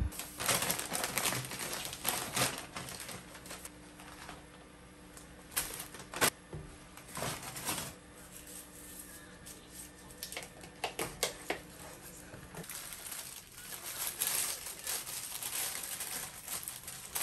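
Irregular crinkling and rustling with sharp light clicks, as of objects or packaging being handled, coming in uneven bursts over a faint steady hum.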